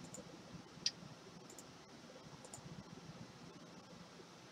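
A few faint, sharp clicks from a computer being operated, the loudest about a second in, over quiet room hiss.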